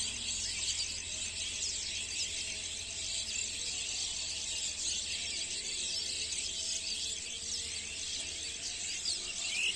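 A large flock of small birds chirping all at once, a dense unbroken chatter of many high, overlapping calls.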